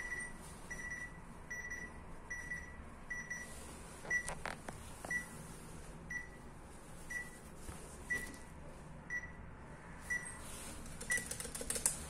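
Urmet door-entry intercom panel sounding its call tone after a flat number is dialled: a steady run of short electronic beeps, longer pips about every three-quarters of a second at first, then shorter beeps about once a second from about four seconds in. A few faint clicks fall among the beeps.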